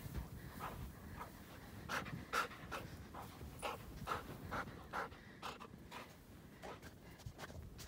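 Black Labrador retriever panting hard while working through deep snow: a quick run of breaths, about two to three a second, that thins out near the end.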